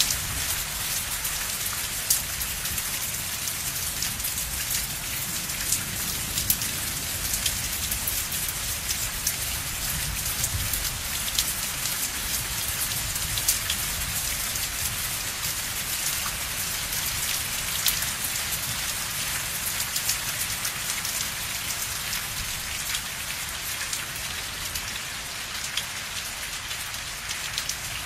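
Steady rain falling, a constant hiss dotted with many small drop ticks, with a low rumble underneath.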